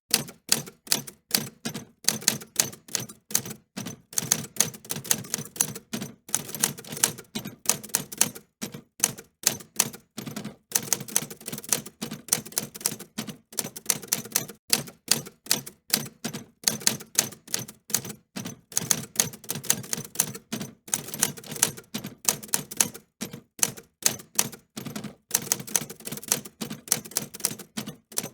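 Typewriter keys being struck in a fast, irregular run of sharp clicks, several a second, with brief pauses between runs.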